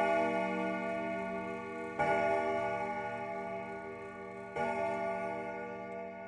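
Slow bell-like chimes in the soundtrack music: a chime rings on from just before, then is struck again about two seconds in and once more near the end, each strike ringing out and fading. The whole slowly grows quieter.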